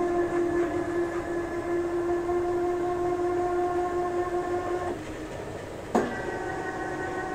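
Machine tool's electric motor switched on with a click, running with a steady whining hum that drops away about five seconds in; a second click about a second later and it runs again at a different pitch.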